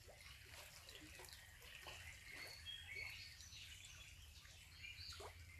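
Faint forest stream ambience: water trickling with scattered short falling plinks, and small birds chirping with brief high notes.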